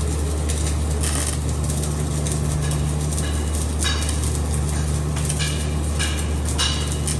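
A machine running with a steady low hum, under a continuous crackling hiss that flares up briefly several times.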